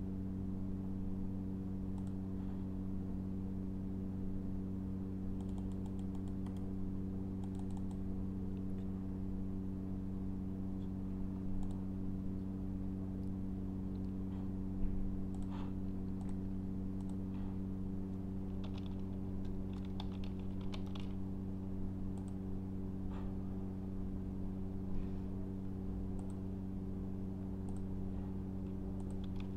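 Computer keyboard keystrokes and mouse clicks, scattered and sparse, with a short run of typing about two-thirds through, over a steady low hum.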